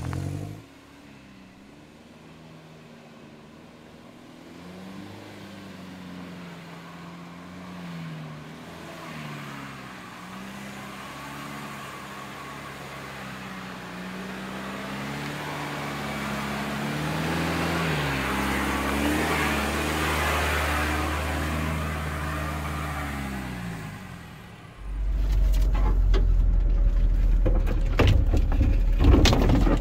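A 4x4's engine revving up and down, its pitch rising and falling as it works, growing louder with a hiss building toward the middle. About 25 s in, a sudden much louder low rumble takes over, with several sharp knocks near the end.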